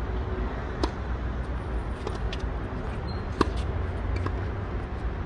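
Tennis balls struck by rackets during a doubles rally: several sharp hits, starting with the serve about a second in, with the loudest crack from the near player's racket a little after the middle, over a steady low rumble.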